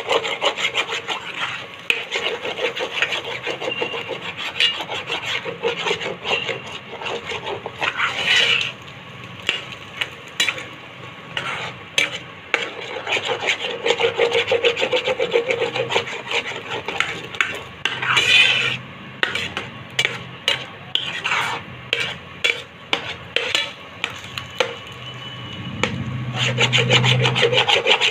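A spatula scraping and stirring scrambled eggs across the bottom of a frying pan, in rapid irregular strokes with small knocks against the pan. A brief low hum joins in near the end.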